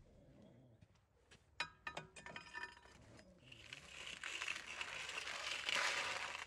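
A wooden stick knocking a few times inside a brick wood-fired oven, then raking glowing embers across the oven floor with a rough, scratchy scraping that lasts about three seconds.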